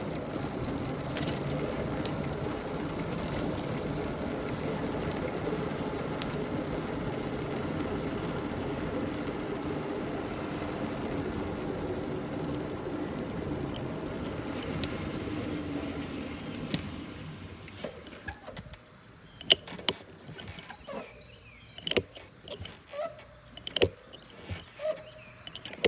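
A bike rolling to a stop, its brakes giving a steady droning hum that fades out after about seventeen seconds, the odd sound that comes every time the bike stops. Scattered clicks and knocks follow.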